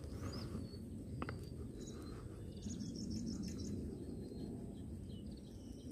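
Faint birds chirping over a low steady rumble, with a quick run of repeated notes about halfway through and one sharp tick about a second in.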